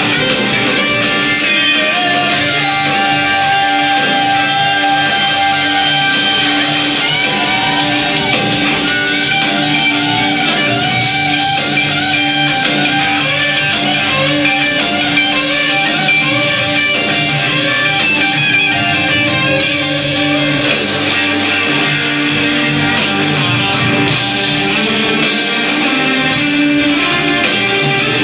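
Live band playing an instrumental passage led by guitar, with strummed chords under a lead line whose notes bend and waver, at a steady, loud level.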